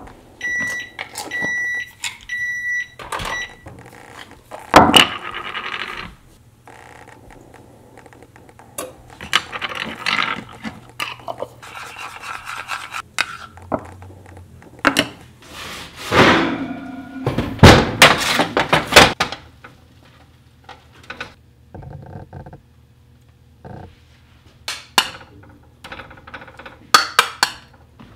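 Kitchen handling sounds. A quick run of electronic appliance beeps near the start, then knocks, clinks and scrapes of a sauce jar, a metal spoon and a ceramic bowl as a hoisin-and-honey glaze is spooned out and stirred. The loudest clatter comes about halfway through.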